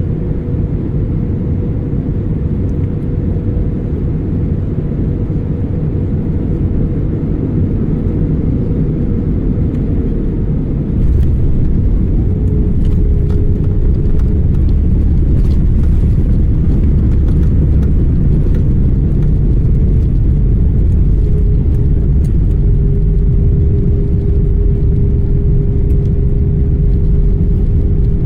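Airbus A320 cabin noise: a steady rumble of engines and airframe with a faint whine. About eleven seconds in it gets suddenly louder and deeper, with light rattles, as on touchdown and the landing roll.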